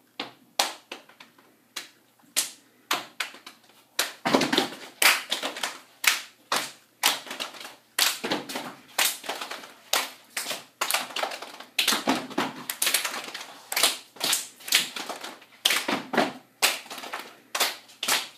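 Step team stepping: a rhythmic run of hand claps, stomps and body slaps from a group of girls. A few sparse strikes at first, then a denser, louder stream of strikes from about four seconds in.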